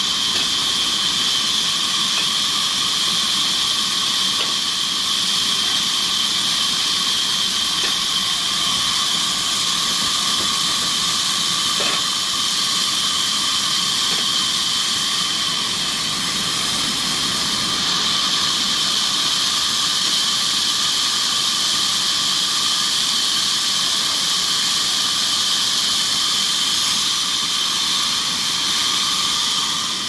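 Large sawmill band saw running steadily, its blade cutting through a log fed on a rail carriage: an even, high hissing whine.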